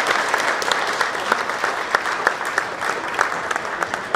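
Audience applauding, a dense round of clapping that thins out toward the end into fewer, separate claps.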